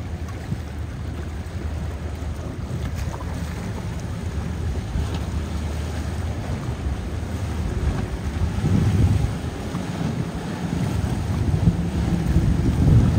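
Twin-outboard center-console boat running at speed, a low engine drone mixed with the rush of its wake and waves, under heavy wind buffeting on the microphone. The sound swells twice, about nine seconds in and again near the end.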